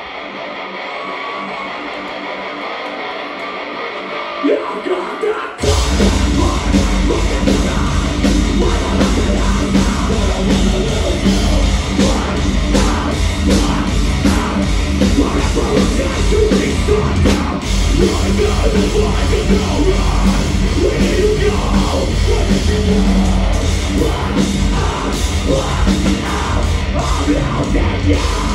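Metalcore band playing live through a club PA, loud and heavy. For the first five and a half seconds the bass and drums drop out, leaving a thinner sound; then the full band comes back in with a heavy low end and plays on.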